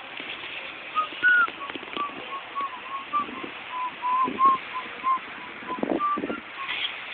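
Someone whistling a simple tune: a run of short notes stepping up and down, with a few dull knocks in between.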